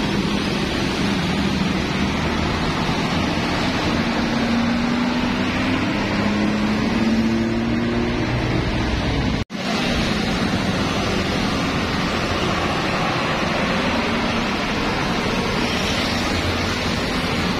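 Steady road-traffic noise as a large intercity bus drives past among motorbikes and cars, its engine drone rising slightly in pitch as it goes by. About halfway through, the sound drops out for an instant at a cut.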